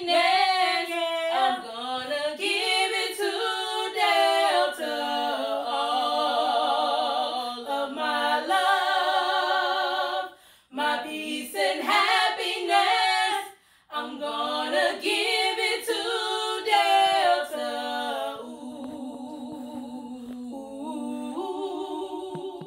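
Voices singing a cappella with no instruments, with vibrato on held notes. There are two brief breaks about halfway through, and the singing grows quieter near the end.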